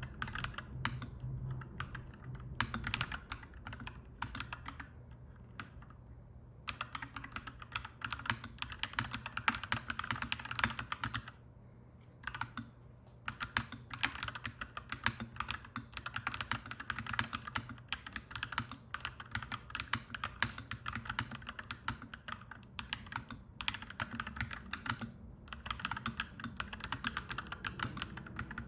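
Clacky mechanical keyboard being typed on in fast runs of keystrokes, easing off twice for a second or two. A steady low hum runs underneath.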